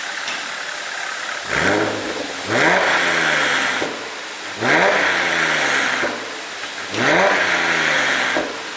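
Audi A7 3.0 TFSI supercharged V6 revved from idle three times, each rev climbing quickly and then falling back. The engine runs an ECU tune set to make the exhaust pop and crackle as the revs drop.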